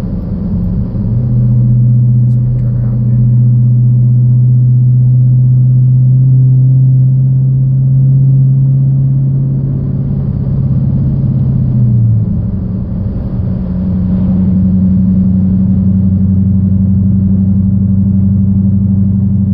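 2014 Dodge Challenger R/T's 5.7-litre Hemi V8 through straight pipes (catalytic converters only, no muffler or resonator), heard from inside the cabin while cruising: a steady low exhaust note. The note changes about twelve seconds in and then holds steady again.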